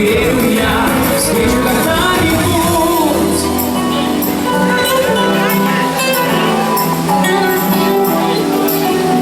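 Recorded show music playing loudly, with no words; the deep bass drops out about three and a half seconds in.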